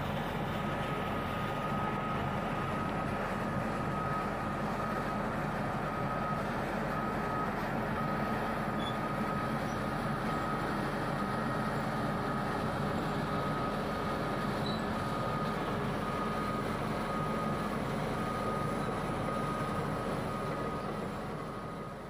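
Komatsu D155A bulldozer's diesel engine running steadily as it works, with a back-up alarm beeping at an even rate over the engine noise.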